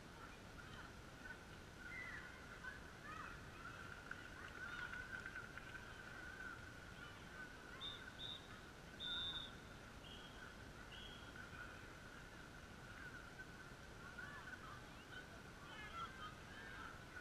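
Faint, distant shouts and calls of young football players across the pitch. About eight to eleven seconds in come a few short, high whistle blasts; the one near nine seconds is longer and is the loudest sound.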